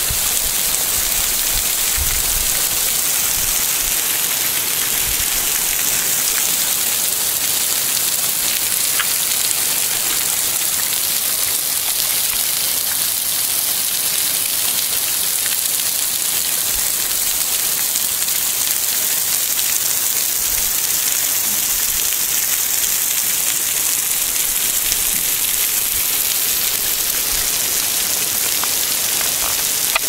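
Thin waterfall falling from the cliff overhead as scattered spray, splashing onto rocks and a pool in a steady, even patter like heavy rain.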